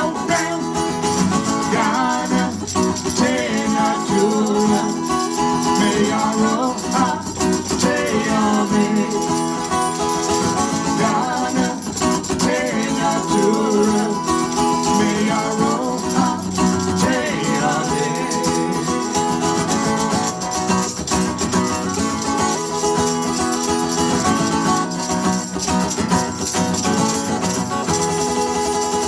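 Live band music: guitars playing over a steady groove, with a rattling shaker.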